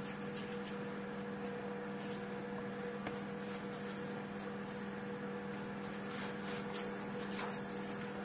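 Soft rubbing of suet dumpling dough being rolled into balls between floured palms, a run of faint brushing strokes over a steady low hum.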